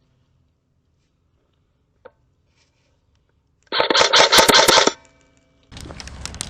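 Airsoft rifle firing one full-auto burst of about a second, a rapid string of shots, preceded by a single sharp click. A steady rustling hiss comes in near the end.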